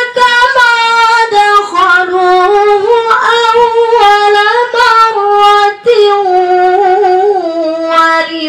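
A woman's voice reciting the Quran in murattal style through a microphone: long melodic phrases of held, gently wavering notes with only brief breaths between them.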